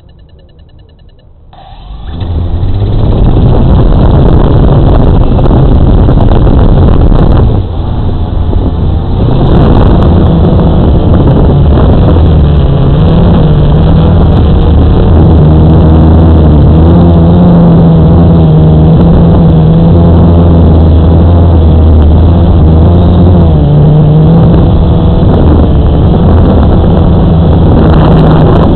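Radio-controlled model aircraft's motor and propeller, heard from its onboard camera: it spins up about a second and a half in and runs loud and steady with a pitch that rises and falls with the throttle, easing off briefly about seven seconds in.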